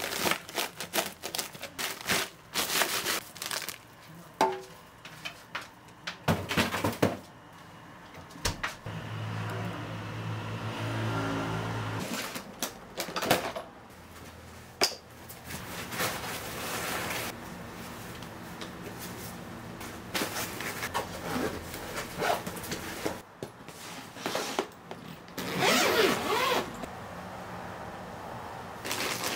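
Hard plastic food containers clacking and knocking as they are shifted in a chest freezer, with plastic bags crinkling; later, clothes rustling and being packed into an open suitcase, with scattered knocks.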